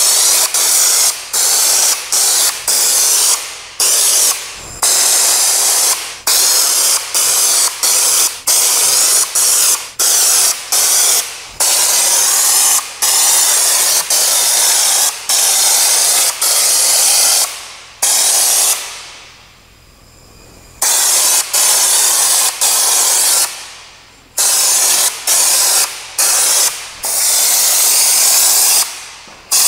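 Compressed-air underbody coating gun spraying rubber-based anti-gravel coating from a can, hissing in many short blasts as the trigger is squeezed and released. There is a pause of about two seconds roughly two-thirds of the way through.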